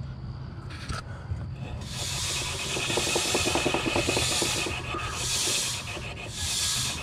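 Angle grinder with its disc grazing the tread of a spinning dually mud-terrain tire. After about two seconds a rasping scrape swells and fades about once a second, once per turn, where the tire's high point touches the disc: the tire is out of round.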